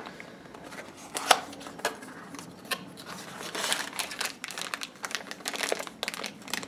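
A small clear plastic parts bag crinkling as it is handled, among scattered sharp clicks and taps from a small cardboard box being opened; the loudest tap comes a little over a second in, and the crinkling is densest in the second half.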